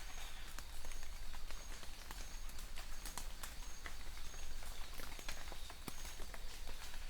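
Rain falling, with heavy drops hitting a hard surface in irregular sharp clicks over a steady high hiss. A short, high chirp repeats about every three quarters of a second throughout.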